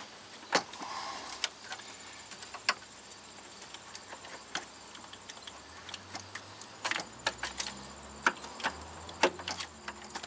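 Scattered metal clinks and knocks as a replacement starter is worked into position by hand against the engine and transmission, coming more often in the second half.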